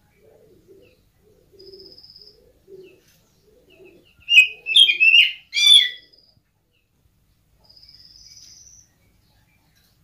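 Oriental magpie-robin (kacer) giving a quick run of four loud, harsh calls about halfway through. A thin high buzzy trill comes twice, once early and once near the end, over soft low cooing notes in the first half.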